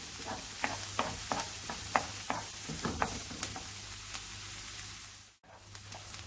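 Diced onion sizzling in hot oil in a frying pan, with frequent clicks and scrapes from a wooden spatula stirring it. The onion is being sautéed until soft. The sound cuts out briefly about five seconds in, then the sizzling resumes.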